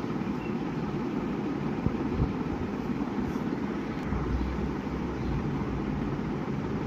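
Steady low background rumble, with a couple of small knocks about two seconds in.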